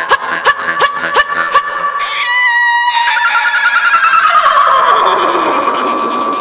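Jaw harp plucked in quick twanging strokes over its drone, then a vocal imitation of a horse: a short high call followed by a long whinny that slides steadily down in pitch.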